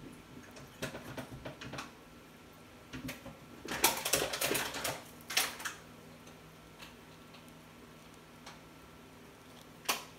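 La Marzocco Strada EP espresso machine pulling a shot through a bottomless portafilter: a faint steady machine hum under irregular sharp clicks and ticks, densest and loudest a little before the middle. Later come a few single ticks as the espresso stream reaches the cup.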